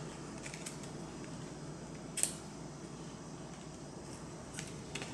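One sharp click about two seconds in and a few faint ticks near the end, over a steady low hum: small plastic and metal parts of an iBook G4 being handled as its AirPort card is fitted.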